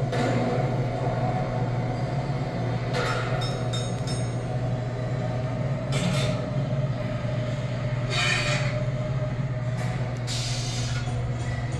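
Steady low mechanical hum of machinery aboard a ship, with a few short hissing or clattering noises every two or three seconds.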